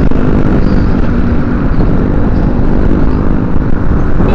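Motorcycle engine running steadily while riding along, with wind rumbling on the microphone.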